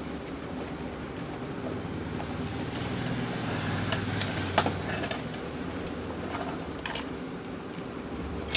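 BLDC table fan running steadily on a 12 V battery, a steady motor hum with air noise from the blades, with a few sharp clicks about four, four and a half and seven seconds in.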